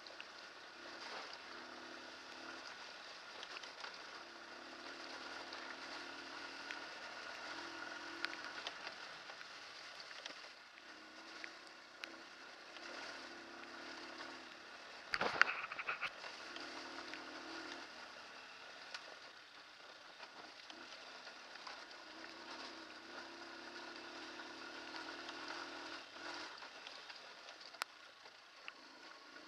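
Hartford VR150's 150cc air-cooled single-cylinder engine running as the bike is ridden over a rough gravel track, its note coming and going as the throttle opens and closes, over a steady hiss. About halfway through comes a loud, sudden clattering knock lasting about a second.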